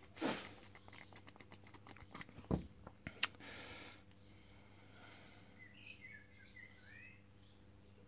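A rapid run of small metallic clicks and scrapes as a key blank is worked in a small padlock and drawn out, ending in one sharper click about three seconds in. Faint bird chirps follow near the end.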